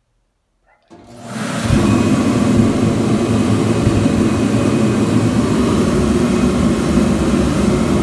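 Forced-air kerosene torpedo heater switching on under its thermostat about a second in: the fan and burner come up over about half a second and then run steadily and loudly, a dense rushing noise with a low hum.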